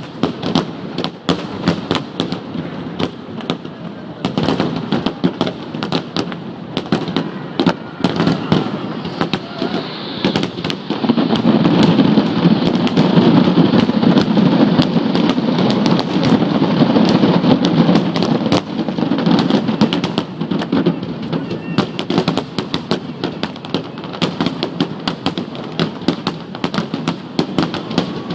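Fireworks display: a dense, continuous barrage of bangs and crackles. It grows louder and denser from about a third of the way in to about two thirds, then eases back.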